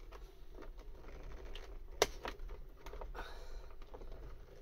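Plastic trim clips of a Ford Mondeo Mk5 door panel being worked loose by hand: faint scattered clicks and creaks, with one sharp snap about two seconds in. The clips are very tight.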